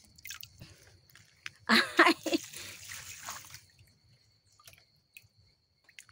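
Water splashing and dripping as a banana bract is dipped into a small spring hole and lifted out full to drink from. There is a brief vocal sound about two seconds in, followed by a second or so of trickling.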